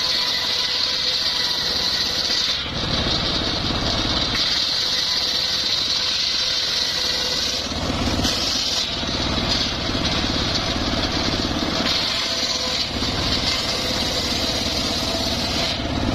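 Homemade engine-driven circular saw bench ripping teak boards: a steady engine hum under the high whine of the blade in the wood. The whine breaks off briefly several times as one pass ends and the next board is fed.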